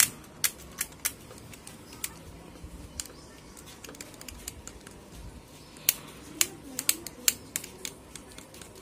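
Utility-knife blade scraping a solder pad and copper track on a circuit board, giving irregular sharp clicks and scratches, with a louder run of clicks near the end. The pad is being cleaned of a dry, arced solder joint in the TV's power-supply board so that it can be resoldered.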